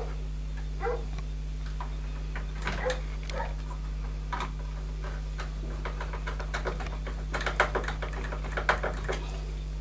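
Scattered clicks and taps of hard plastic parts being handled and fitted into a boiler's control-box housing, with a quicker run of clicks near the end.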